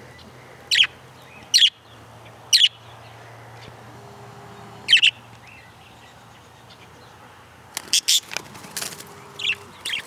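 Budgerigars giving short, loud, high-pitched contact chirps: four single calls spaced a second or two apart, then a quick flurry of several calls over the last two seconds.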